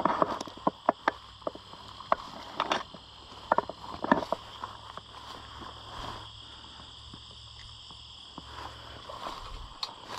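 Footsteps through tall dry weeds, the stalks crackling and snapping as they brush past, over a steady high chorus of insects. The crackling is densest in the first four seconds, then thins out.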